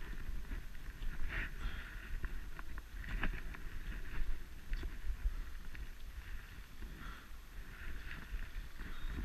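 Footsteps crunching through shallow snow at a slow walking pace, a crunch every second or two, over a steady low rumble of wind on the microphone.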